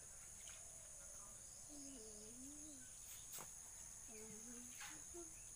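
Near silence with a faint steady high chirring of crickets. A couple of soft low murmurs and a faint click sit on top.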